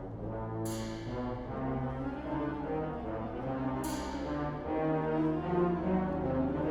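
Wind band playing sustained brass chords, with French horns and trombones prominent. A bright percussion stroke rings out twice, about a second in and about four seconds in. The band swells louder over the last couple of seconds.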